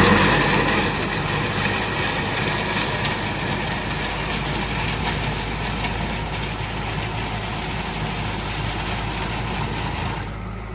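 JCB backhoe loader's diesel engine running steadily with a low hum, loudest at the start and easing off, then dropping noticeably near the end.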